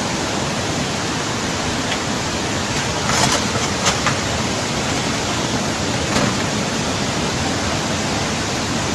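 Floodwater rushing in a fast, steady torrent, with a few brief louder surges.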